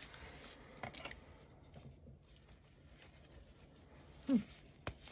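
Light handling noise from a small cardboard gel-polish box being opened and set down, with sharp clicks about a second in and near the end. About four seconds in there is a brief falling vocal sound, like a short 'hmm'.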